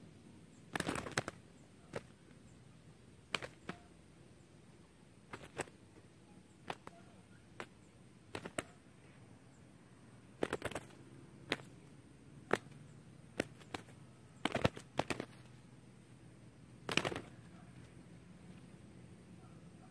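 Spotted doves fighting on the ground, their wings striking in sharp slaps. The slaps come irregularly, about a dozen of them, some in quick clusters.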